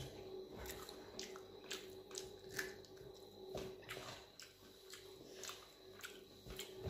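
Faint wet eating sounds: fingers squishing and mixing dal-soaked rice on a steel plate, and chewing, heard as a scatter of small irregular clicks and smacks.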